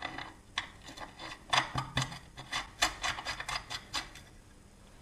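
Washers and small metal parts clicking and scraping against the Lambretta TV175 disc brake hub as they are fitted by hand: a string of light, irregular clicks and rubs that thins out near the end.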